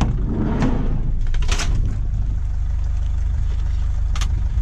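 Scrapped computer parts knocked and clattered while being handled: a few sharp knocks, with a longer clatter about a second and a half in, over a steady low rumble.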